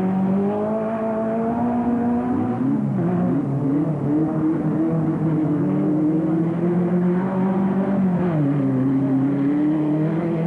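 Off-road race car engines running under load, the pitch climbing slowly and then dropping twice: about two and a half seconds in and again about eight seconds in.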